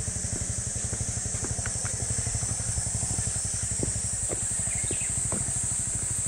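Honda CB223S's air-cooled single-cylinder four-stroke engine idling with an even, rapid putter, holding steady without revving.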